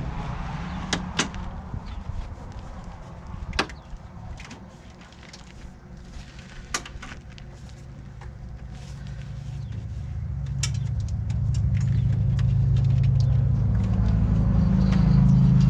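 Scattered clicks and knocks from a thick brake cable and metal parts being handled while the cable is fed up behind a side-by-side's firewall. Underneath runs a low, steady motor-like hum that grows louder through the second half.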